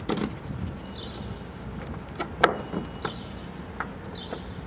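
Scattered light clicks and knocks from hands working on a plastic bellows fitting and its hardware, with one sharper knock about halfway through.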